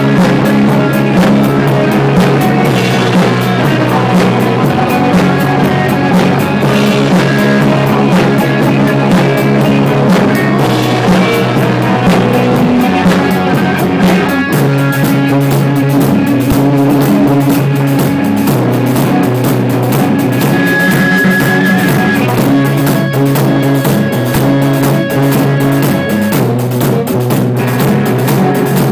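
A rock band playing live: electric guitars over a drum kit with cymbals. The drumming gets busier about halfway through.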